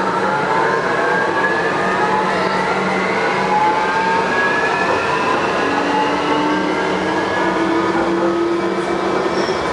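Taipei Metro Wenhu Line Bombardier automated people-mover train pulling away, its drive whine made of several tones rising slowly in pitch as it gathers speed, over steady running noise.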